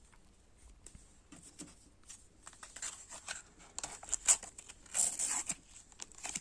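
Paper sticker packets and stickers being handled, rustling and crinkling in short bursts, growing louder from about four seconds in.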